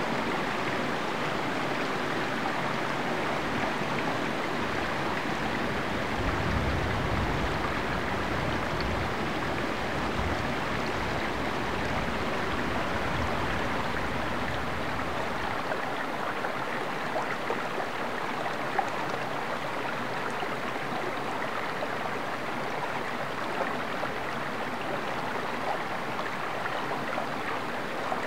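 Shallow woodland stream flowing, a steady rush and trickle of water over riffles.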